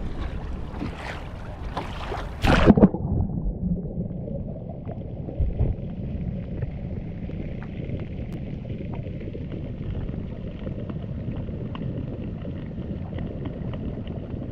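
Water and gear sounds on a kayak while crab drop nets are set: sharp splashes and knocks in the first three seconds, the loudest about two and a half seconds in, then a steady low wash of water with faint ticking.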